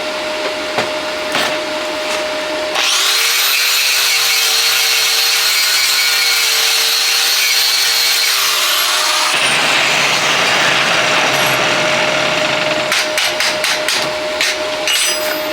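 A handheld electric power tool starts about three seconds in, runs with a steady high whine for about six seconds, then spins down with a falling pitch. A rough, noisy grinding follows, then a run of sharp clicks near the end.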